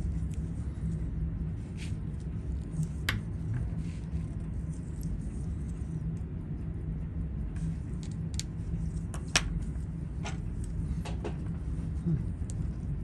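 A steady low rumble with scattered light clicks and taps, about half a dozen, the sharpest about nine seconds in.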